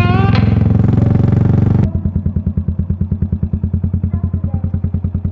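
Yamaha SR400's single-cylinder four-stroke engine idling through a full megaphone exhaust in steady, even pulses. Music playing over it cuts off suddenly about two seconds in.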